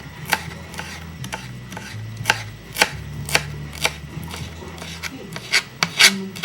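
Knife chopping on a cutting board: sharp, uneven strikes about every half second, quickening near the end.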